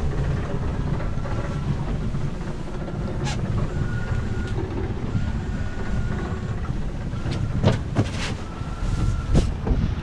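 Steady low rumbling rush of wind and water as a Sangria sailboat's hull is shaken through a short, choppy sea in strong wind, heard from inside the cabin, with a faint thin whistle coming and going. Near the end come several sharp knocks and clicks.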